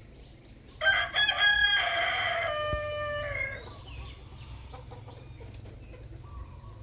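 A rooster crows once, starting about a second in and lasting about two and a half seconds, with a few choppy notes and then a long held note that falls away at the end.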